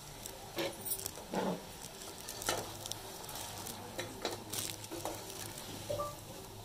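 Metal ladle stirring cubed potatoes and flat beans into fried masala in a metal pot, with irregular scrapes and knocks against the pot over a light sizzle.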